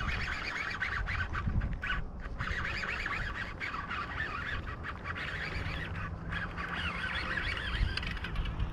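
A flock of waterside birds calling together: many short overlapping calls that run on without a break, over wind rumble on the microphone.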